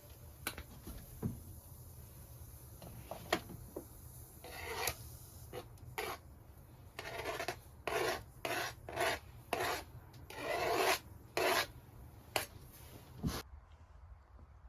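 A series of rasping, scraping strokes, each under a second, with a few sharp knocks before them.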